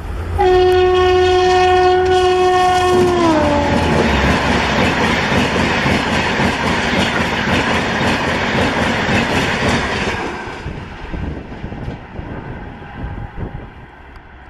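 Gatiman Express train passing at high speed. Its horn sounds one steady note, which drops in pitch as it goes by. The loud noise of the coaches going past follows, then fades away after about ten seconds.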